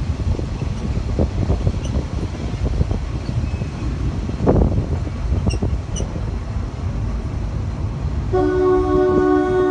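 Narrow-gauge train rumbling along, heard from an open carriage, with a clunk about halfway; near the end the train's whistle sounds one long steady note.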